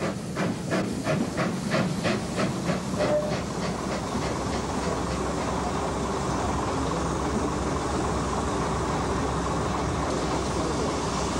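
Metre-gauge steam tank locomotive pulling away, its exhaust beating about three times a second. The beats fade after about three seconds into a steady hiss.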